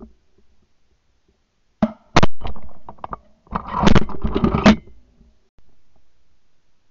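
Shotgun shots at close range, recorded from a barrel-mounted camera: a sharp crack about two seconds in, then a quick cluster of several more shots around four seconds.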